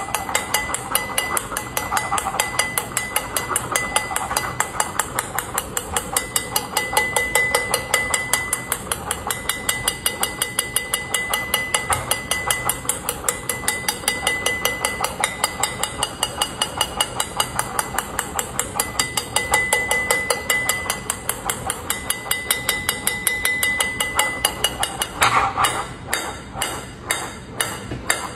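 Ping-pong ball bouncing over and over on the hard plate of a servo-driven balancing platform that bats it back up, a quick, even run of sharp taps. Near the end the taps come further apart as the ball is sent higher.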